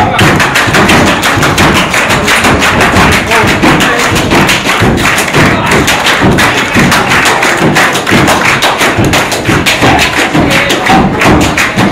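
Hungarian men's folk dance: rapid rhythmic hand claps, slaps and boot stomps from two dancers over lively folk music.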